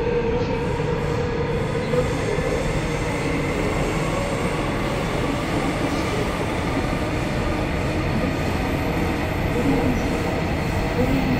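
Seoul Subway Line 9 train running steadily through a tunnel, heard from inside the passenger car: continuous wheel-on-rail and running noise with faint steady tones.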